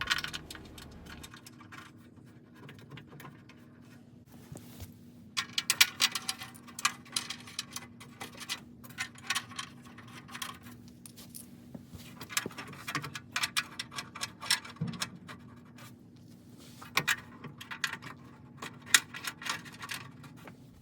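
Metal hand tools and hardware clinking and rattling in irregular bursts from about five seconds in, over a faint steady hum.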